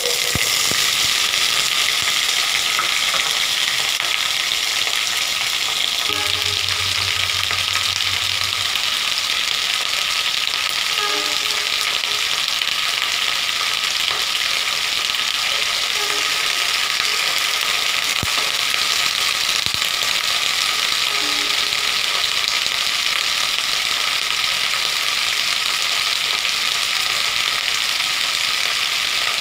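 Cut flat beans sizzling loudly in hot oil with fried mustard seeds in a kadai. The hiss starts abruptly as the beans drop into the pan, then holds steady.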